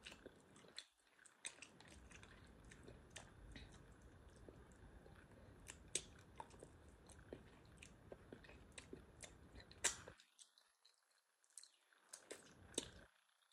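Faint close-up chewing and lip smacking of a person eating a chicken wing, with many small wet clicks; it drops to near silence for a couple of seconds near the end.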